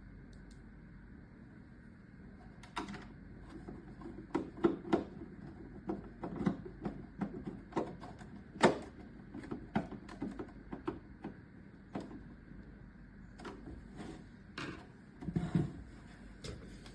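Irregular clicks and knocks of plastic parts being handled and fitted together, starting about three seconds in and stopping near the end, during reassembly of an air purifier's housing.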